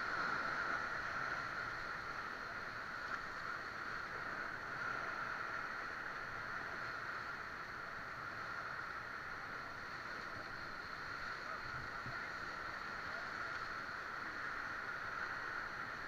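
Whitewater river rapids rushing steadily around an inflatable raft.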